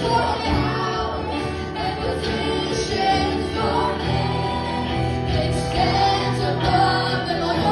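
Congregational worship singing: voices sing together over sustained keyboard chords in a gospel-style worship song.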